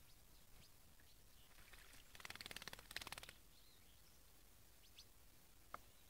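A small dark bird bathing in a shallow tray of water: a burst of rapid splashing, about a second long, beginning about two seconds in. Faint short bird chirps come now and then.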